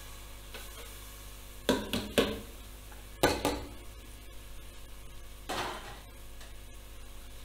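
A metal spoon clanking and scraping against an aluminium pressure cooker as lentils are stirred into the masala. There are sharp knocks about two and three seconds in and a softer scrape near six seconds, over a faint steady hum.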